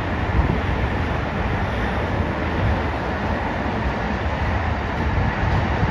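Amtrak Pacific Surfliner bilevel passenger cars rolling past, with a steady low rumble of steel wheels on the rails.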